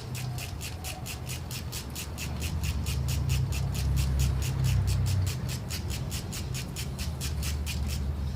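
Ratchet wrench clicking at a steady pace of about five clicks a second while undoing the Torx 30 bolts of the timing-chain tensioner, over a low hum. The clicking stops just before the end.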